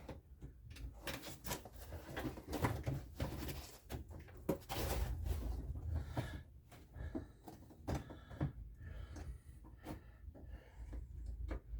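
Irregular clicks, knocks and rattles of a door lock actuator and latch being worked into place inside a car door.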